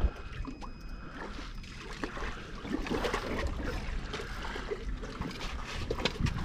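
Water lapping and trickling against a small boat, with scattered light knocks and clicks.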